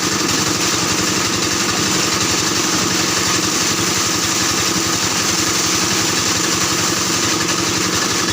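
Plastic washing machine running steadily: a constant mechanical hum with a low drone and a steady rushing noise over it, unchanging throughout.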